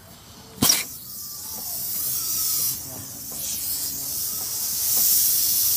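Compressed air hissing through a two-gauge cylinder leak-down tester hooked to a car engine. The hiss starts with a sharp pop about half a second in, dips briefly midway, grows louder toward the end and cuts off suddenly.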